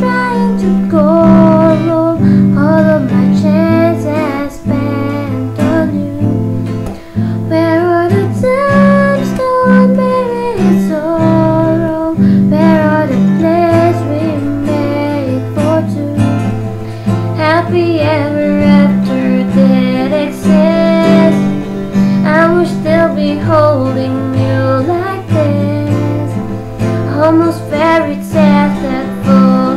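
Music: a female voice singing a gliding melody over guitar accompaniment.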